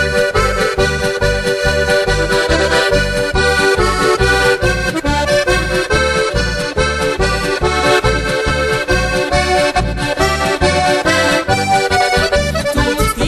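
Instrumental break of a Slovenian folk-pop song, led by accordion over a steady bass beat.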